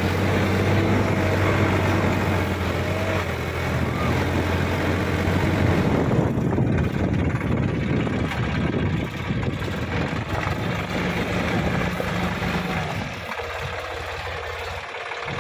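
Sonalika DI 50 Rx tractor's diesel engine running as the tractor works through wet, muddy soil. The note is steady for the first several seconds, turns rougher and noisier after that, and drops a little in loudness near the end.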